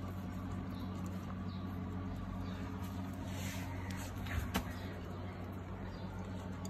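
Husky puppies licking and nudging an empty food bowl on a tiled floor, with faint small clicks and a couple of sharper knocks about four and a half seconds in, over a steady low hum.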